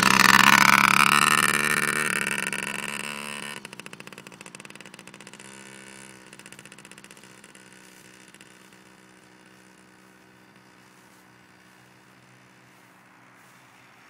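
Small Yamaha 50cc motorbike engine revving up as it pulls away, then fading to a faint steady hum as the bike rides off into the distance.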